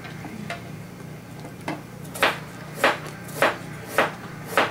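Knife chopping on a cutting board: a couple of light knocks at first, then sharp, steady chops about every 0.6 seconds through the second half.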